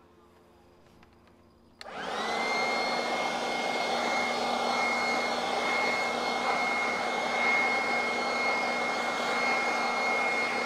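Small leaf blower switched on about two seconds in, its motor spinning up quickly to a steady high whine over a rush of air as it blows the lawn-edge cuttings away.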